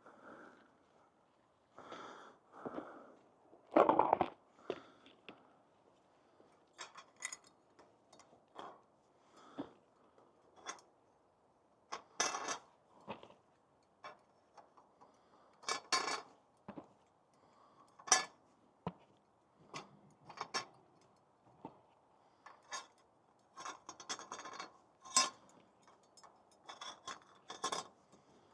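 Irregular clinks, rattles and scrapes of bird feeders being handled and topped up with peanuts and fat balls.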